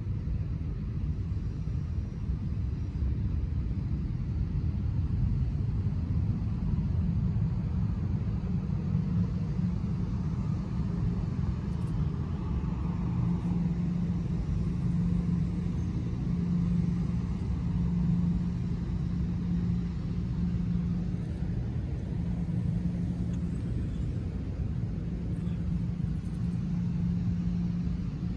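Steady low rumble of a running engine, with a low hum that comes and goes from about halfway through.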